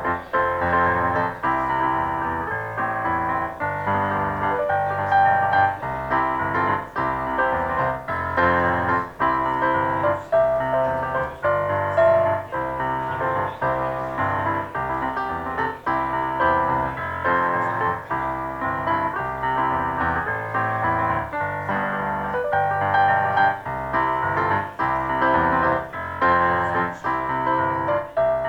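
Piano playing a slow piece of chords and melody, each note struck and left to fade.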